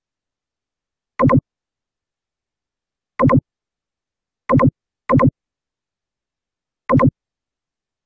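A short synthetic pop sound effect marking mouse clicks, played five times at uneven intervals; each is a quick double blip with a pitched tone.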